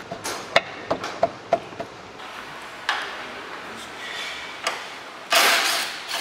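Hand tools clinking and tapping against metal under a car, a quick run of sharp metallic clicks as a wrench is worked on a bolt. A thump follows, and then a short hiss near the end.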